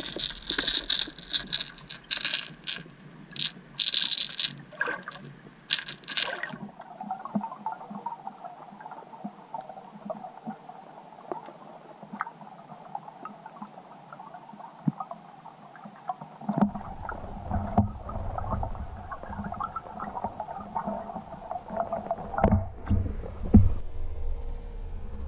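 Muffled underwater sound picked up by a submerged camera: a steady rushing haze with scattered clicks and knocks. The sound changes abruptly about a quarter of the way in, and a low rumble joins about two-thirds of the way through.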